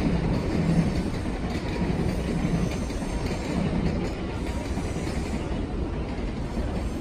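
Shinkansen bullet train approaching from a distance, a steady rumble of the train on the rails.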